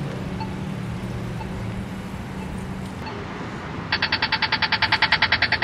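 Accessible pedestrian crossing signal at a street crosswalk: a slow locator tick about once a second, then about four seconds in it switches to a loud rapid ticking of about twelve clicks a second, the audible cue that the walk phase has begun.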